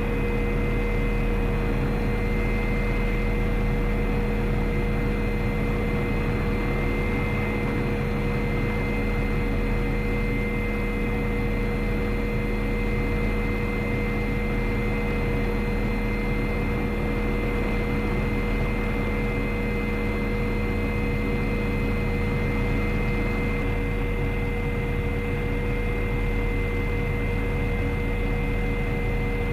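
MD 530F Cayuse Warrior helicopter's Rolls-Royce 250 turboshaft engine and rotor running steadily, heard from inside the cockpit: a dense rush with a steady high whine.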